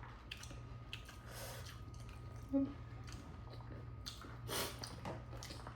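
A person chewing crisp street snacks close to the microphone: soft, irregular crunches and mouth sounds, with louder crunches about a second and a half in and again about four and a half seconds in.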